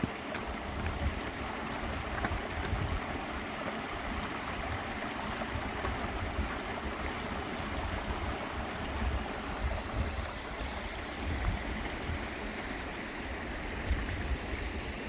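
A steady rushing hiss, with low gusts of wind buffeting the microphone.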